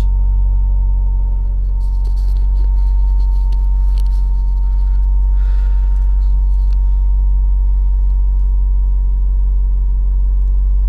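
Toyota Celica GT-Four ST205's 3S-GTE engine idling steadily, with a thin, steady high-pitched electrical whine over it. This is the noise that comes on whenever the throttle is blipped and is not meant to be there; the owner thinks it comes from the left side of the engine bay.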